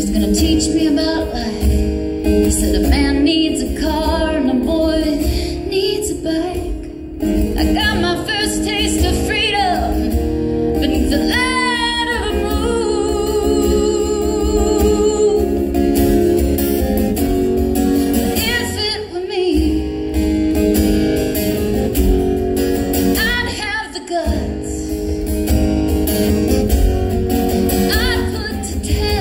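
A woman singing solo to her own strummed acoustic guitar, live, holding one long wavering note about twelve seconds in.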